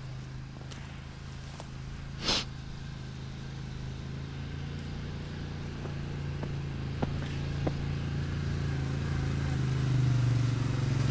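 ATV engine running at a steady pitch, growing steadily louder as it approaches. A short burst of noise about two seconds in.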